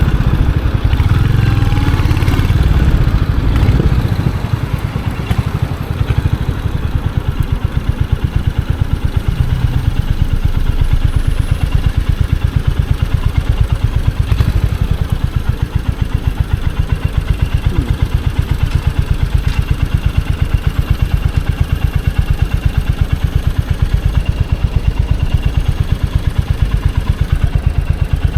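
Royal Enfield Hunter 350's single-cylinder engine and exhaust, running under way for the first few seconds and then settling to a steady, even idle thump about four seconds in.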